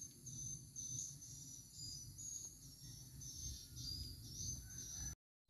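Faint, high-pitched chirping of insects, several steady tones stepping in pitch, over a low rumble.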